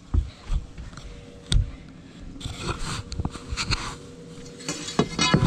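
Handling noise in a fishing boat: three heavy thumps in the first second and a half, then scattered knocks and scrapes.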